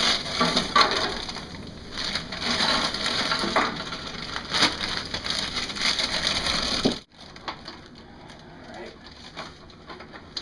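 Plastic bags of marshmallow Peeps crinkling and rustling as they are handled and opened. It stops abruptly about seven seconds in, leaving a few faint scattered clicks.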